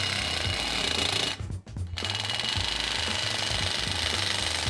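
Cordless impact driver hammering as it spins the bolt of a DIY rivet-nut setting tool, pulling a rivnut tight so that it collapses behind the panel. It pauses for about half a second around one and a half seconds in, then carries on.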